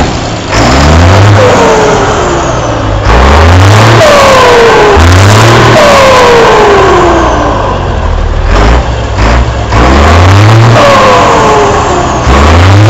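Scania P94 260 truck's five-cylinder turbodiesel revved about five times in a row, each rev followed by a loud falling whistle from the turbocharger as it spools down. The turbo has a comb ('pente') insert fitted in it to make it sing.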